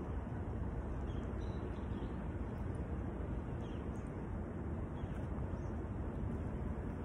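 Steady low outdoor background rumble, with a few faint, short bird chirps above it.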